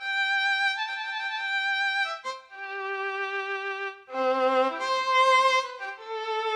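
Casio Privia PX-S3000 digital piano playing its violin voice: a slow melody of long held notes with vibrato.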